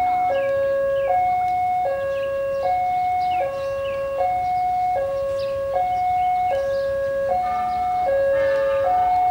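Railway level-crossing warning alarm sounding a steady two-tone hi-lo signal, alternating between a higher and a lower tone about every three-quarters of a second. It is warning of an approaching train.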